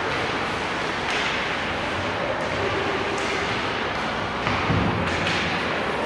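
Steady background din of a large hall, with a few sharp knocks and a heavier low thud about five seconds in.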